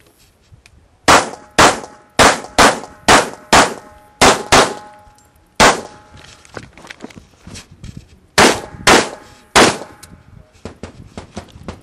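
Semi-automatic pistol fired in quick strings: about ten shots half a second apart starting about a second in, a pause of nearly three seconds while moving to the next position, then three more shots near the end. A faint ringing tone lingers after several of the shots.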